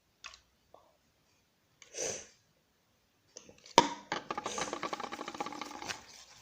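Homemade slime being mixed and worked by hand after the activating solution has gone in. A few faint clicks and a brief swish come first. About four seconds in a sharp click starts some two seconds of rapid, sticky squelching.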